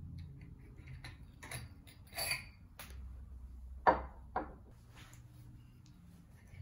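Light clicks and clinks of a glass ceiling-fan light shade and its side thumbscrews being handled, then two sharp knocks about half a second apart as the glass shade is set down.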